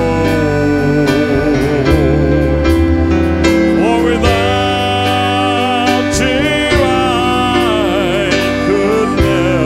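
Live gospel music from a church worship band: piano and drum kit under a lead melody that wavers in pitch.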